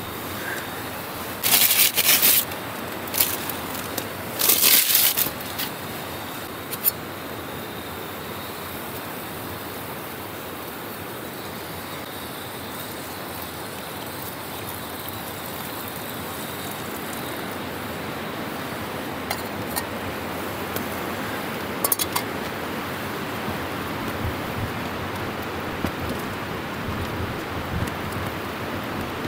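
Steady wind noise outdoors. Two loud rustling bursts of about a second each come in the first five seconds, with a few short sharp clicks after them and one more later on.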